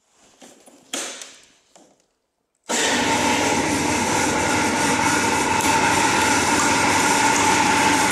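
Honda Pax Eve scooter's small engine running steadily, coming in suddenly a little under three seconds in. Before it, faint handling clicks and a knock about a second in.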